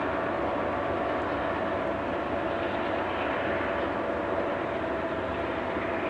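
Union Pacific coal train rolling away on curved track: a steady rumble of wheels on rail with a thin, steady tone held through it.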